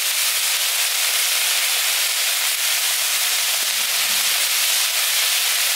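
Bottle gourd leaves, stems and potato pieces sizzling steadily in oil in a kadai.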